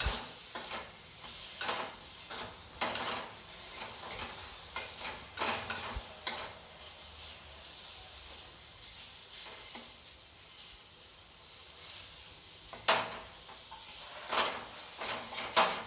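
Steel spatula scraping and stirring boiled potato chunks through sizzling masala in a kadhai, over a steady frying hiss. The scrapes come at uneven intervals, thin out for a few seconds in the middle, and pick up again near the end.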